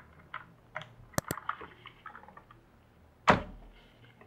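Keycaps being pulled off a Rampage Hydra R6 mechanical keyboard: small plastic clicks, two sharp snaps just over a second in and a louder click a little past three seconds. The caps come off stiffly because the keyboard is new.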